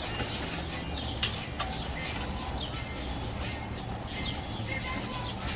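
Small birds chirping now and then over a steady low rumble, with a couple of sharp clicks.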